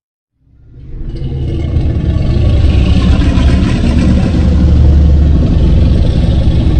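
Deep, loud rumbling sound effect that swells up out of silence over about a second and then holds steady.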